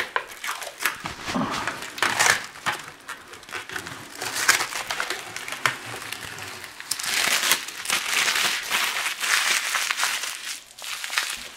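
Hands crumpling and crinkling a crackly sheet of peeled-off peel-and-stick tile backing, in a dense run of crackles that is busiest in the second half and thins out near the end.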